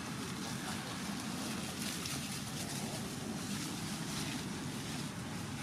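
Steady rushing outdoor background noise with no distinct events: wind on the microphone mixed with the hum of road traffic.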